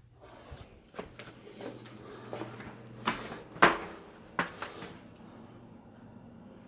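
Scattered clicks and knocks of objects being handled, the sharpest a knock about three and a half seconds in, over a low steady hum that fades out a little later.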